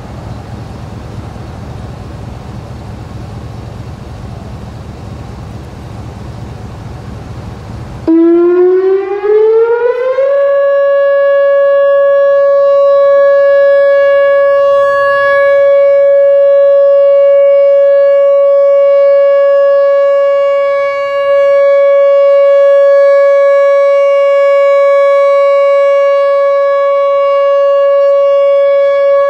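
Whelen Vortex R4 outdoor warning siren sounding its test alert. About eight seconds in it starts, its pitch rising over a couple of seconds, then it holds a loud, steady tone for the rest of the time. Before it starts there is only a steady rushing background noise.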